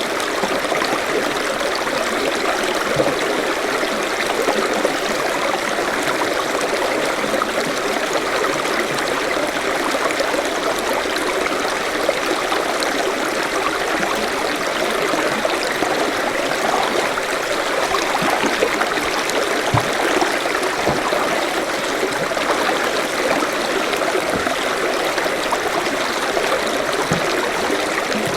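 Forest stream flowing steadily over rocks: a continuous rush of running water with small splashes and gurgles.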